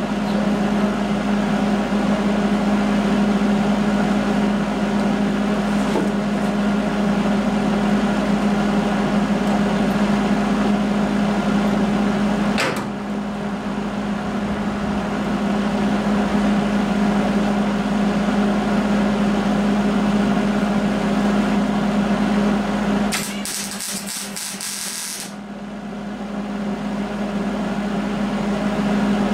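A steady, loud machine hum with one low pitch, dipping briefly twice, about halfway through and near the end.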